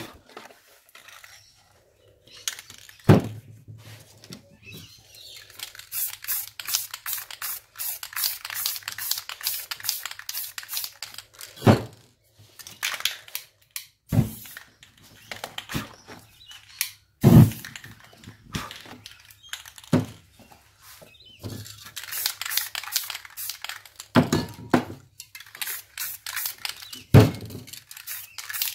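Aerosol spray paint cans hissing in many short bursts as paint is sprayed onto paper, with a handful of sharp knocks in between.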